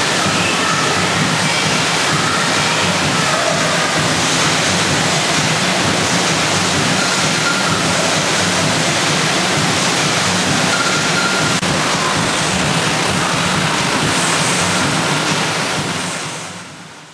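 Rushing water of an artificial surf wave, pumped water pouring steadily over the ride surface of an indoor wave pool, fading out near the end.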